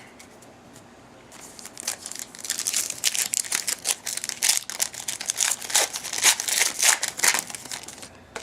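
Plastic-foil trading-card pack wrapper crinkling and being torn open by hand, a dense crackling rustle starting about a second in and stopping shortly before the end.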